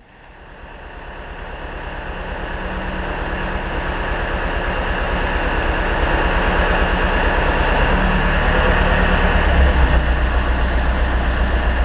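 A large engine running with a steady low pulse. It grows louder over the first several seconds, then holds steady.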